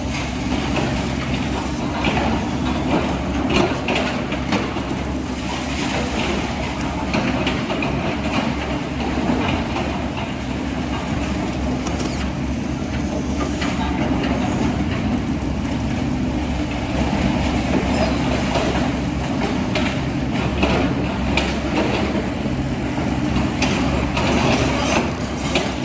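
Radio-controlled model excavator and truck running: a steady electric motor and gear hum with frequent small clicks and clatter.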